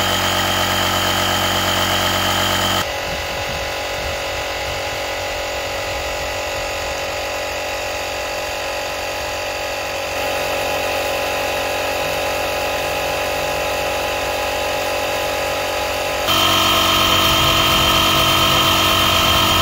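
Small 12-volt-style piston air compressor built into a CAT 1200A portable power station, running steadily as it pumps an RV tire from about 47.7 to 49.9 PSI. The steady motor hum drops abruptly in level about three seconds in and jumps back up near the end.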